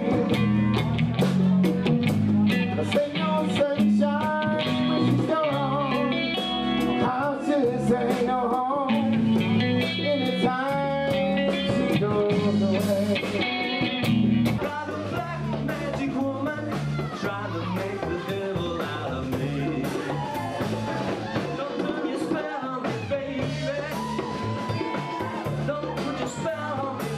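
Live band music with a man singing over guitar, bass and drums. About halfway through the sound cuts to a quieter stretch of the band playing, with the bass guitar to the fore.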